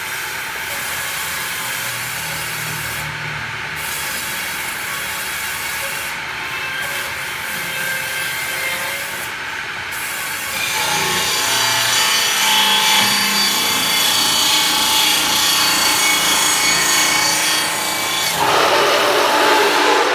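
A saw cutting through wood: a continuous rasping that grows louder and brighter about halfway through, with a high ringing, and is loudest just before the end.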